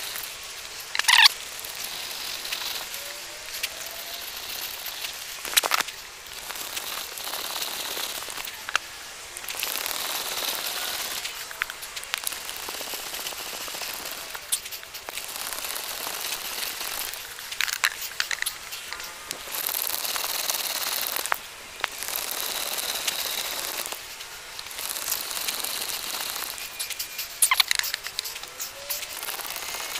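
Hand brace turning a 3/4-inch auger bit through plywood: a steady crackly rasp of the bit cutting wood in stretches of a few seconds, broken by brief pauses, with a few sharp clicks.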